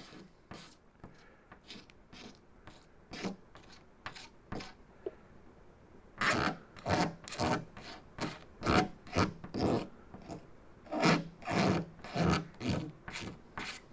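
Razor blade held upright, scraping a run in cured automotive clear coat in short rasping strokes. It shaves the raised top of the run down flat. The strokes are faint and sparse at first, then from about six seconds in they come louder and quicker, about two a second.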